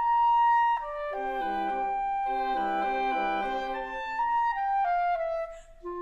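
Wind quintet of flute, oboe, clarinet, horn and bassoon playing a slow passage: a long held upper note over a repeated figure of short chords in the lower instruments. The sound dips briefly near the end before a new chord enters.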